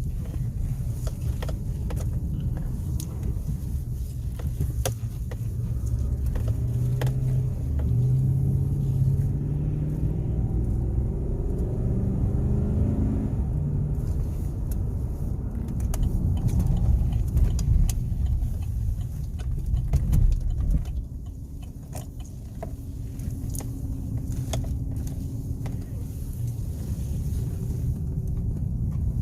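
Inside the cab of a 2018 Chevy Silverado on the move: a steady low rumble of engine and road noise. About a third of the way in, the engine note climbs in steps as the truck speeds up through the gears.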